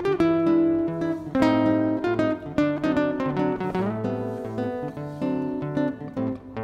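Background music: an acoustic guitar playing a run of plucked and strummed notes.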